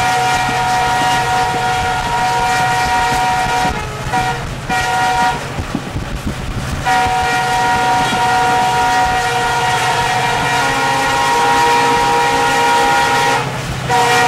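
Diesel locomotive air horn sounding long, steady multi-tone blasts. It breaks off briefly about four seconds in, for over a second around six seconds, and again just before the end. Underneath is the low rumble of a moving train.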